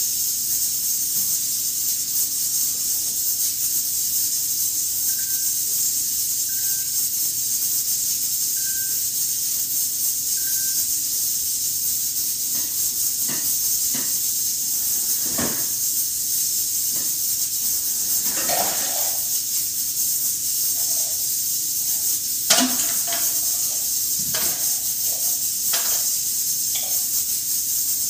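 Steady high-pitched hiss throughout, with four faint short beeps about two seconds apart in the first half. Scattered faint knocks and clicks follow, the loudest a single knock about three-quarters of the way through.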